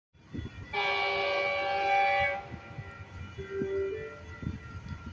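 Approaching Metrolink commuter train's air horn sounding one long blast of about a second and a half, a chord of several steady tones.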